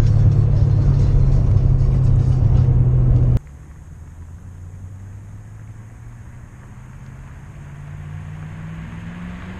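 Ford Mustang GT's 4.6-litre V8 through Legato axle-back exhausts, heard from inside the cabin as a loud, steady cruising drone. About three seconds in it cuts to the car heard approaching from far down the street, its exhaust note faint at first and slowly rising in loudness and pitch.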